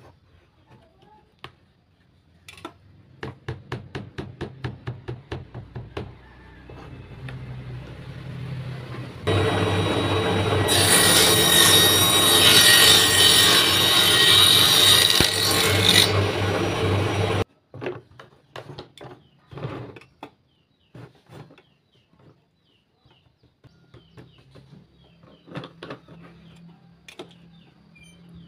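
A bench-mounted circular saw runs loud for about eight seconds in the middle while a thin wooden board is cut on it, then stops abruptly. Before it comes a short run of quick rhythmic scraping strokes, a few a second, and after it scattered knocks and taps of wood and tools on the bench.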